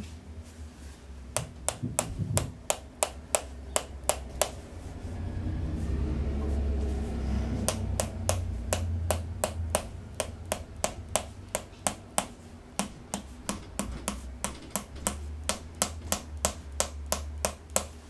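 Mallet tapping a chrome metal adjusting instrument held against the lower back, a series of sharp taps about three a second, with a pause of a few seconds about a quarter of the way in. This is a percussive chiropractic adjustment of the low back.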